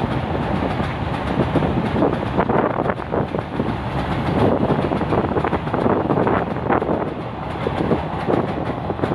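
An Indian Railways goods train's open-top freight wagons rolling past: a steady rumble of steel wheels on rail, with louder clatters coming and going as wheel sets pass.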